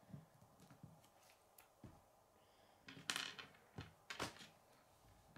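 Faint clicks and knocks of chunky plastic K'nex Kid pieces being handled on a wooden table, with a brief clatter about three seconds in and two sharper clicks soon after.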